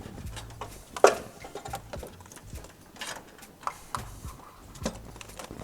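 Scattered clicks and knocks of hand work on car parts under the hood, the loudest about a second in, over a low rumble that comes and goes.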